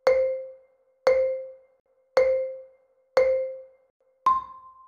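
Countdown timer sound effect: four short pitched pings about a second apart, each fading quickly, then a fifth, higher ping that marks the end of the count.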